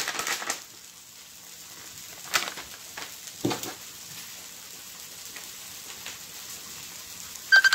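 Plant-based meat crumbles sizzling quietly and steadily in oil in a non-stick frying pan, after a brief rustle of the packet at the start. A couple of single knocks come in the middle, and a short beep sounds near the end.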